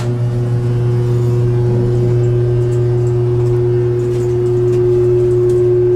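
Vintage elevator's alarm bell ringing continuously, a loud, steady electric buzzing ring with a strong low hum.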